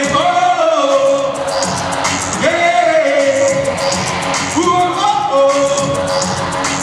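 Live dancehall-pop concert music through an arena PA, a vocalist singing held notes that slide up and bend over a steady beat. It is heard from far back in the arena, with the hall's echo on it.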